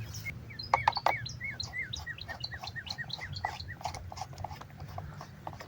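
A small bird singing a quick run of short, repeated chirps, about four a second, that starts just under a second in and trails off after a few seconds, over a steady low hum.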